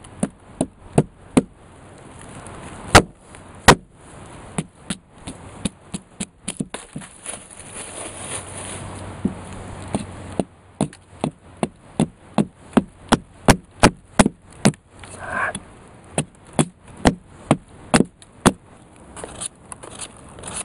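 Repeated sharp chopping strikes of a blade into a section of green wood, irregular at first, then a quicker run of about two to three blows a second in the middle stretch, slowing again near the end.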